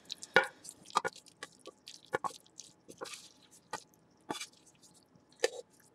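Macaroni and cheese being moved from a pot into a bowl: a scatter of short utensil clicks and taps with wet squishes. The loudest taps come about half a second in and near the end.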